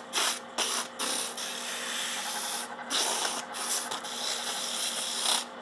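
Sandpaper held by hand against a wooden ball spinning on a wood lathe, making a steady rasping hiss that breaks off briefly several times, over the lathe's faint steady hum.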